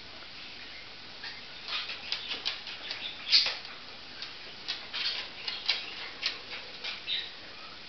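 A run of light, irregular clicks and ticks, starting about a second in, coming thickest through the middle, and stopping shortly before the end, with one louder click about three and a half seconds in.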